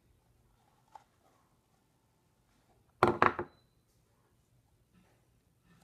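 A large plastic Play-Doh container set down on a tabletop: a short clatter of several knocks about three seconds in, with a faint click about a second in and little else.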